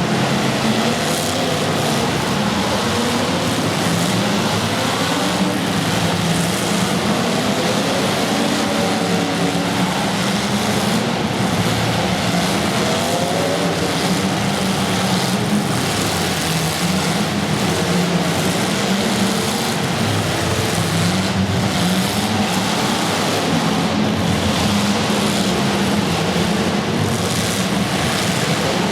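Several small racing engines running together, their pitches rising and falling as they lap.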